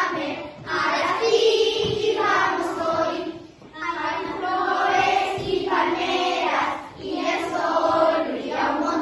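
A group of children singing a song together in unison, in several phrases with short breaks between them.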